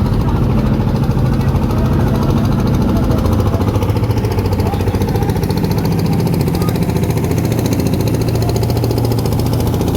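A boat engine running steadily close by, with a fast, even knocking beat.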